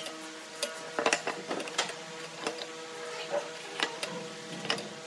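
Light, irregular clicks and knocks of a metal square and a pen against a pine board on a wooden workbench as a line is marked, over a steady faint hum.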